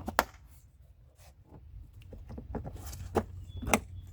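Scattered clicks and knocks of engine-bay parts being handled and fitted back into place, a few sharp ones near the end, over a faint low hum.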